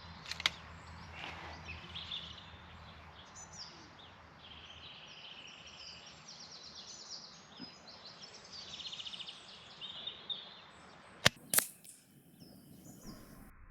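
Birds singing in the background, then about eleven seconds in a single sharp AirMaks Katran PCP air rifle shot firing a JSB Jumbo Exact pellet, with a second sharp sound a fraction of a second later.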